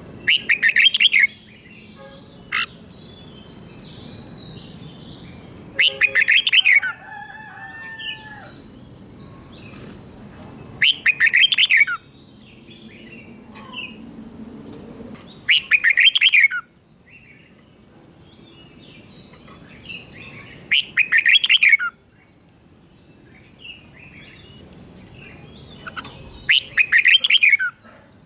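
Red-whiskered bulbul singing: six loud, short song phrases, each about a second of rapid notes, coming about every five seconds, with faint chirps between them.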